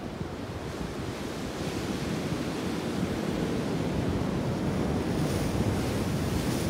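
Ocean surf washing against a rocky shore, mixed with wind buffeting the microphone; a steady rushing noise that swells a little louder partway through.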